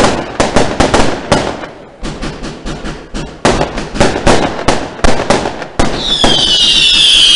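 Aerial fireworks bursting in quick succession: a rapid string of bangs and crackles, with a short lull about two seconds in. Near the end a loud, shrill whistle sets in and holds, sliding slowly down in pitch.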